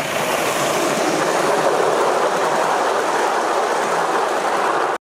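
Gauge 1 live-steam model locomotive running close by, a steady hiss of steam and rapid exhaust with the rattle of its wheels on the track. The sound cuts off suddenly near the end.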